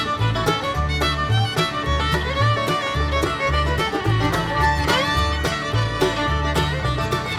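Background music: an upbeat bluegrass tune led by fiddle, with guitar and a bouncing bass line.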